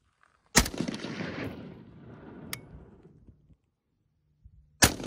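Two rifle shots about four seconds apart from a Zastava M76 semi-automatic rifle in 8mm Mauser, each followed by a long rolling echo, with a light click between them.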